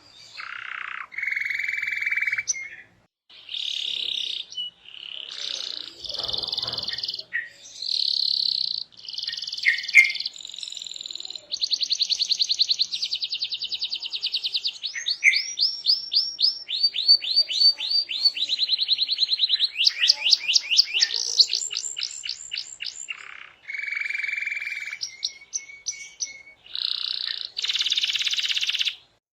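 Domestic canary singing a long, varied song: buzzy rolls, fast trills of repeated notes and runs of rising whistled sweeps, one tour after another with short breaks between them.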